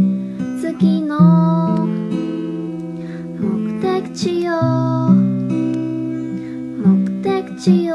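Background music: a plucked acoustic guitar with a singing voice over it.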